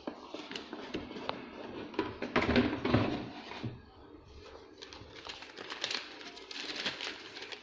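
A cardboard motherboard box and its packaging being handled and opened, giving irregular rustles, taps and knocks.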